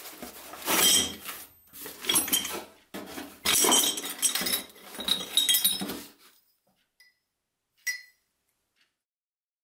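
Lengths of metal bar stock, brass rods among them, clinking and clattering against each other as they are handled in a cardboard box for about six seconds, then one short clink about eight seconds in.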